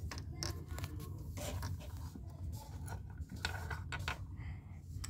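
Scattered light clicks, taps and rustles of small objects being handled and moved about, over the low rumble of the phone being carried and handled.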